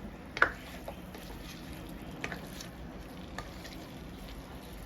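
String beans, potatoes and chicken cooking in a pot with a steady low sizzle, broken by a sharp clink of a utensil against the pot about half a second in and a few lighter clicks later.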